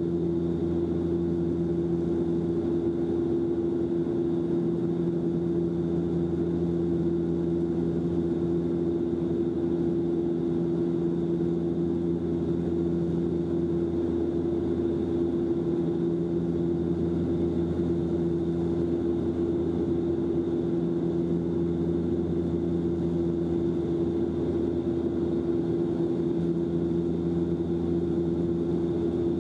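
Cabin drone of a Bombardier Dash-8 Q400 turboprop in flight: its two Pratt & Whitney PW150A engines and six-bladed propellers make a steady hum, with a lower tone that fades and returns every few seconds.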